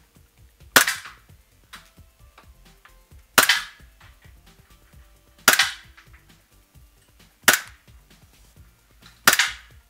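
EMG SAI BLU gas blowback airsoft pistol, powered by CO2, fired five single shots about two seconds apart. Each shot is a sharp crack.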